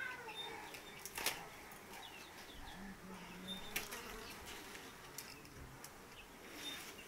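Faint room sound: a fly buzzing for about a second, three seconds in, and again briefly later, with a few sharp clicks and soft rustling as raw wool is teased apart by hand.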